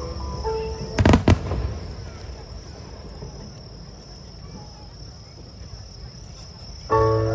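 Two fireworks shell bursts about a second in, a quarter second apart, loud and sharp with a short rumbling tail. Background music fades just before them and comes back in near the end.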